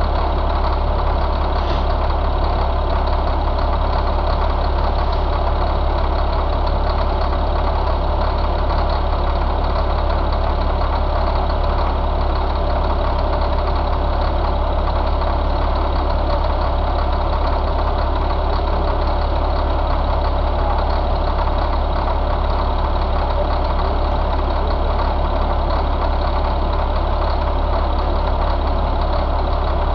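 Caterpillar 3126 inline-six diesel engine idling steadily.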